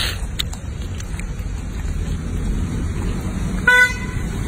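A single short vehicle horn toot near the end, over a steady low rumble.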